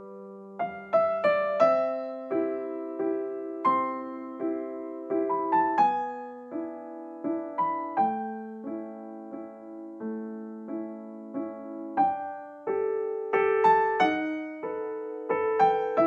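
Background music: a gentle piano melody, single notes struck about two to three a second, each ringing out and fading.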